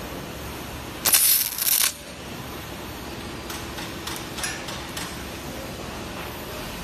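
Stud welder firing a 1/2-inch shear stud: one loud burst of arc noise about a second in, lasting just under a second. A few faint clicks follow.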